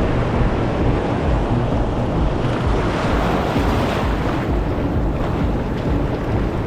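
Wind buffeting the microphone in a steady low rumble, over the wash of sea surf.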